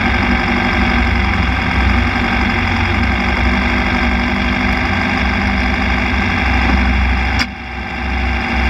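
Formula Vee race car's air-cooled Volkswagen flat-four engine idling steadily. Near the end there is a sharp click and the sound drops noticeably quieter.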